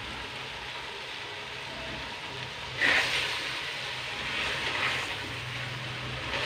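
A steady low hiss from the pot on the stove, then from about three seconds in a metal spoon stirring chopped spinach and turnip pieces in a clay pot, with a few seconds of scraping and rustling.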